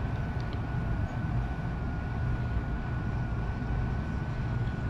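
Lennox indoor air handler running: the blower's steady low hum and rush of air, with a thin steady whine above it.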